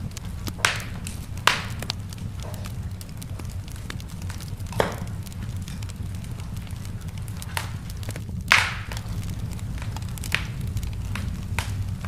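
Wood fire burning in a fireplace: a steady low rumble of the flames with scattered sharp crackles and pops, the loudest pop about eight and a half seconds in.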